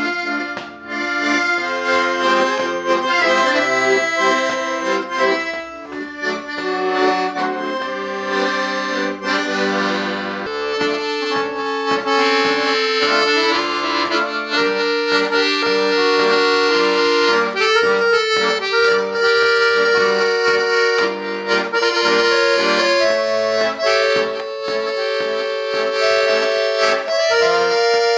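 Accordion playing a tune: a melody over held chords, with notes changing throughout and longer sustained notes in the second half.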